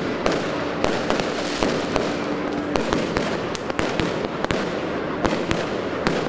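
Aerial fireworks bursting overhead: a rapid, irregular string of sharp bangs and cracks, several a second, over a dense crackling haze.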